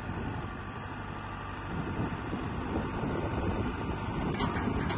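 Hyundai Robex 140LC-9A tracked excavator's diesel engine running steadily while the hydraulics work the boom and arm, with a few sharp clicks near the end.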